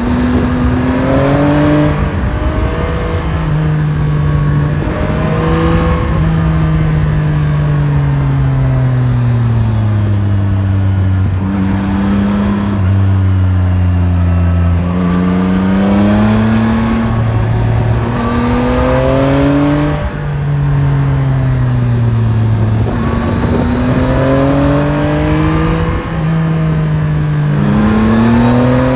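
Yamaha Tracer 9 GT's CP3 inline-three engine under way, its revs rising and falling again and again as it accelerates and slows, with short drops in pitch at the gear changes.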